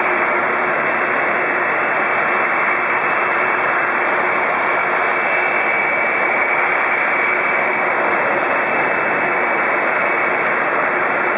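Steady jet turbine rush with a thin high whine, from a Boeing 747-400 at the gate.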